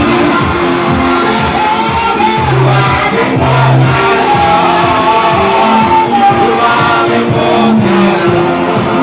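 Gospel worship music: a band playing with a steady beat while a congregation sings along, with some shouts from the crowd.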